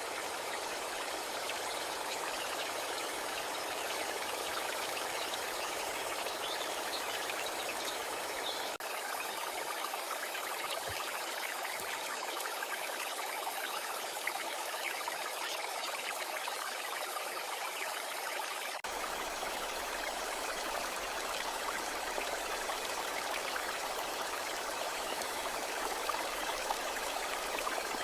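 Steady rain falling, an even hiss without rhythm, briefly dropping out twice, about a third and two thirds of the way through.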